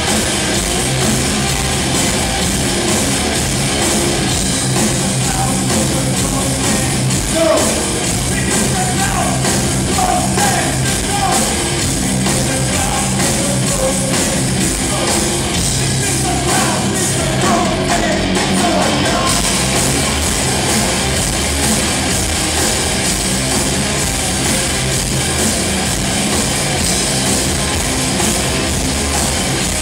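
Live rock band playing loud and without a break: electric guitars, bass and drums, heard from the audience.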